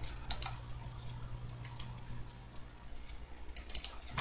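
Computer mouse clicking: two quick pairs of clicks in the first two seconds, then a fast run of about four clicks near the end, over a low steady hum.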